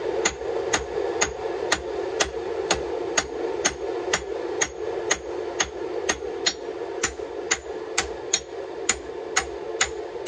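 Hand hammer striking a red-hot fossil Damascus steel billet on an anvil in a steady rhythm of about two blows a second, setting down the steel at the anvil's edge to form the ricasso and tang. A steady drone runs underneath.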